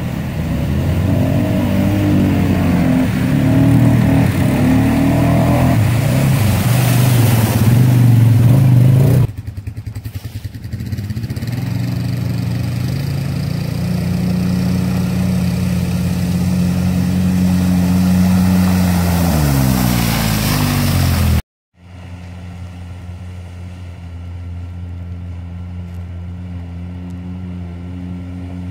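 Off-road vehicle engines in a series of cut-together clips. First an ATV engine revs up and down as it drives through standing water, then a steadier engine runs and its revs drop about 20 seconds in. After a sudden cut, a quieter engine drones steadily.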